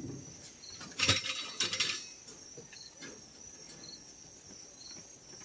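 Insects trilling steadily in a high, thin continuous tone, with short fainter chirps every second or so. A loud burst of scuffing noise sounds about a second in and lasts about a second.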